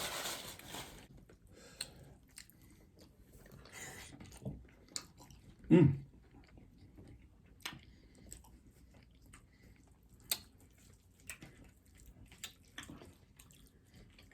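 Close-miked chewing and biting of food, with scattered wet mouth clicks and smacks. A brief louder, pitched sound comes about six seconds in.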